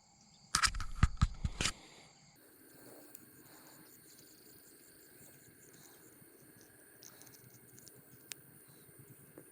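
Sharp clicks and knocks of pliers working a lure's hook out of a small fish's mouth, close and loud, from about half a second to just under two seconds in. Then faint handling rustles over a steady high insect chirring.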